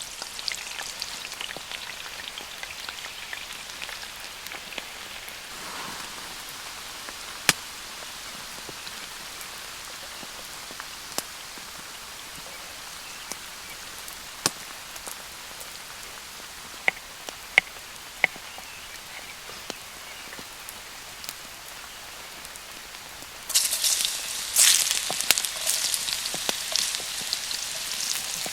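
Steady rain with scattered sharp clicks. About 23 seconds in, a louder crackling hiss sets in and keeps going.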